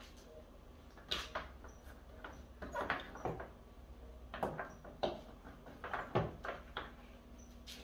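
A long Starlink cable being handled and uncoiled by hand: irregular rustles, scrapes and light knocks as it moves and touches the wooden tabletop.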